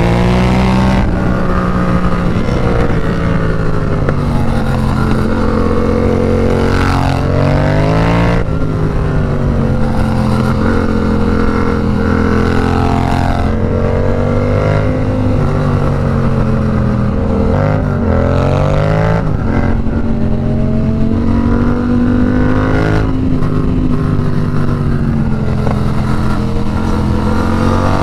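Yamaha FZ-07 (MT-07) parallel-twin engine pulling through a run of bends, its pitch rising and falling over and over and dropping sharply several times as the throttle is rolled off and gears change, over steady wind rush.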